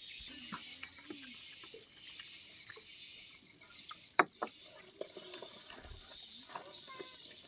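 Small splashes and knocks at the side of a wooden canoe as a hand fishing line is worked, with two sharp knocks close together about four seconds in. A steady high chirping of birds runs underneath.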